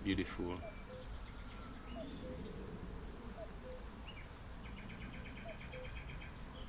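Insects trilling steadily at a high pitch. A second, faster pulsing chirp joins about five seconds in, with a few faint short calls beneath.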